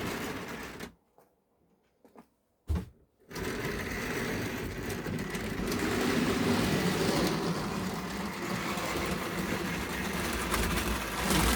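Model railway locomotive's small electric motor and wheels running on the track, cutting out about a second in and starting up again a couple of seconds later after a click. The loco is stalling as it loses and picks up power, which is thought could lie in the locomotive itself.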